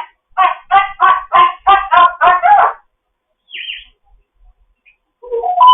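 African grey parrot giving a quick run of about eight short, honking calls, followed by a brief high squeak and then a rising call near the end.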